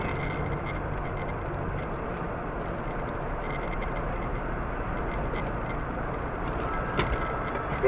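Steady road and engine noise of a moving vehicle, with a faint thin high whine that comes and goes and a small click near the end.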